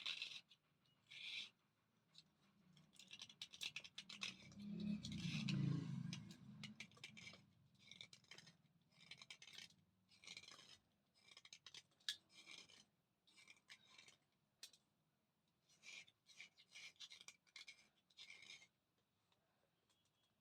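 Chandni brand thick slate pencil being bitten and crunched: runs of short, crisp, crackly crunches. The loudest and fullest crunch comes about five seconds in.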